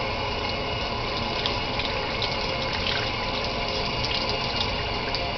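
Water running steadily from a sink faucet and pouring over a newborn baby's head as its hair is rinsed.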